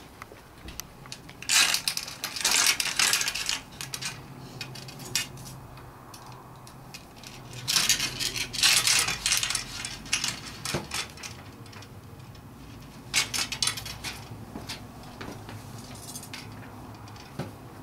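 Handling noise as a home-made beam antenna's wooden boom and metal rod elements are moved and fitted together on paving slabs: sharp clicks, clinks and scraping in three busy bursts, about two seconds in, around eight to nine seconds in and about thirteen seconds in, with scattered single taps between.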